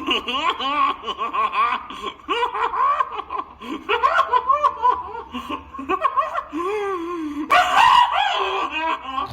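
High-pitched, warbling cartoon laughter from an animated character, going on in rapid fits, with a brief louder burst of noise about seven and a half seconds in.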